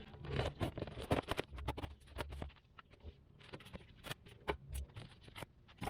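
Shipping box and packing material being opened and pulled apart: irregular rustling, crackling and small knocks, with a few dull thuds.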